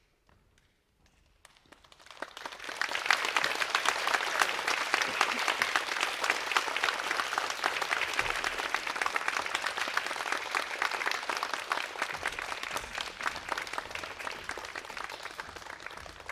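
Audience applauding: the clapping swells in about two seconds in and carries on as steady applause.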